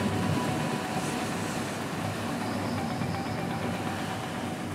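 Steady low drone of the Pershing 7X's twin MAN diesel engines, with the rush of the hull through the water, heard from inside the wheelhouse while the yacht is underway.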